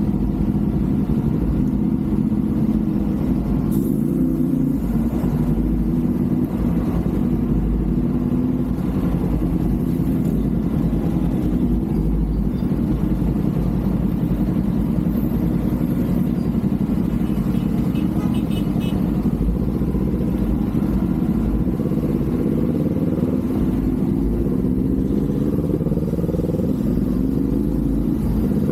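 Kawasaki Z400's parallel-twin engine and exhaust running steadily while riding, with a low rumble underneath. Near the end the engine note rises as the bike accelerates.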